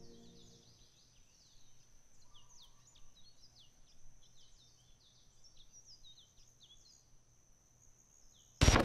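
Many quick, short bird chirps over a steady high-pitched insect drone, after the tail of music fades out at the start. Near the end a sudden loud burst of noise cuts in for about a second.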